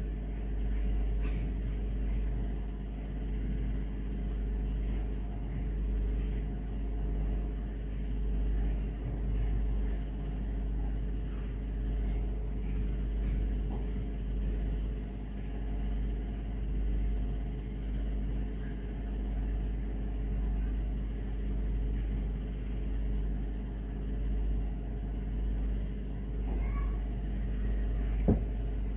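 Steady low rumble with a faint constant hum underneath, and one short click near the end.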